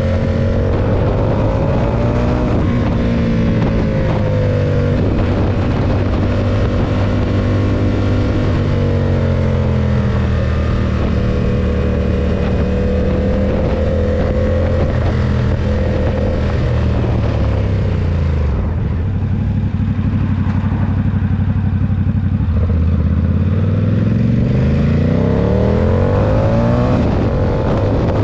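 Ducati SuperSport 939's L-twin engine running under way, its note shifting with the throttle. Its pitch drops away about two-thirds through as the bike slows, then climbs steadily near the end as it accelerates again.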